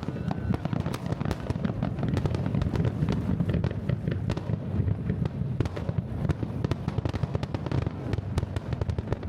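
Large lakeside fireworks display: continuous rumbling booms of aerial shells with rapid crackling from many small bursts.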